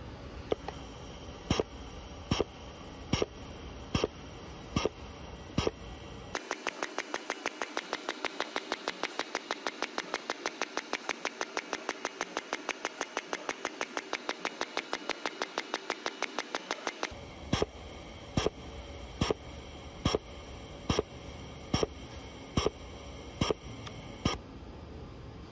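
Handheld Drader-style plastic extrusion welder working along a seam, over a steady faint hiss. It clicks evenly a little faster than once a second, then switches to a fast, even run of about six clicks a second for around ten seconds, then returns to the slower clicking.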